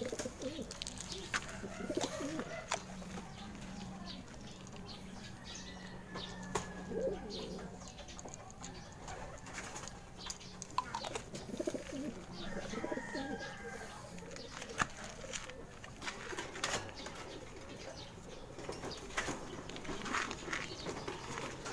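Racing pigeons cooing in a wire-caged loft, with scattered short clicks and rustles and some wing flapping.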